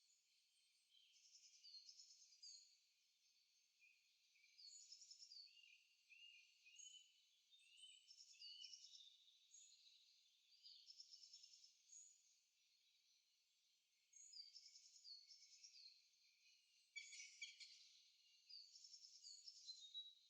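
Songbirds singing, faint and high-pitched: overlapping short chirps, whistled phrases and trills, several birds at once, with a denser burst of rapid notes about three quarters of the way through.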